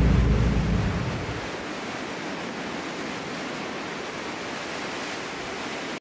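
Steady rushing noise of wind. A low rumble underneath fades away in the first second and a half.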